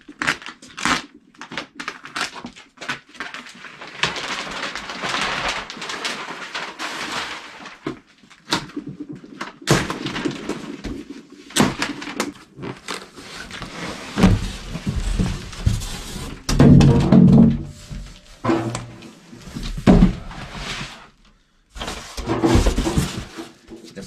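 A cardboard shipping box being unpacked by hand. A knife slits tape and plastic stretch wrap, which crinkles and tears, and then the cardboard and a styrofoam shipping shell scrape and knock heavily as they are pulled apart.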